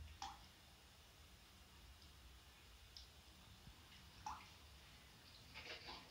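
Two drops of water plink about a quarter second in and a little after four seconds. Near the end a Russian blue cat starts lapping water from a plastic bucket, a quick run of small wet clicks.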